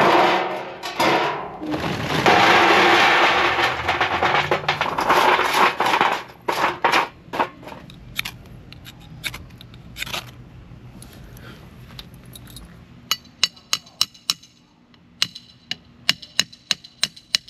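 Charcoal briquettes poured into a metal tray, a loud rattling clatter for a few seconds, then scattered knocks as the lumps are moved into a pile. Near the end comes a run of sharp, separate clicks from a lighter being struck over and over to light the charcoal.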